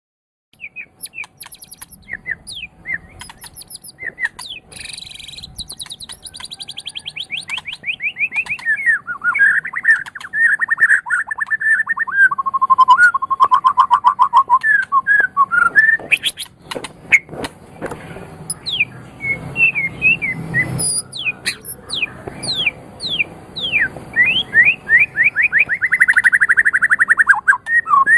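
A murai (Copsychus songbird) singing a long, varied song of fast trills, quick runs of repeated notes and rising and falling whistles. A few sharp clicks come about halfway through.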